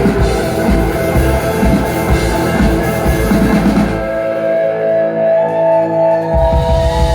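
Rock band playing an instrumental passage on electric guitar, bass and drum kit. About four seconds in, the drums and bass drop out for roughly two seconds, leaving held guitar notes, then the full band comes back in.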